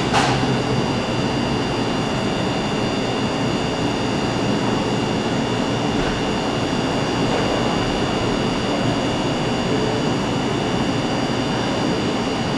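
Steady rushing mechanical room noise with several faint high, steady whines, and a short click just after the start.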